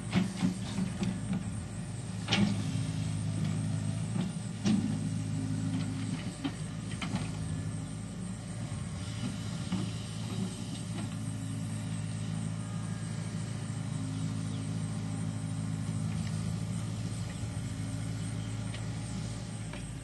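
Steady low engine drone, with a few sharp clicks in the first several seconds.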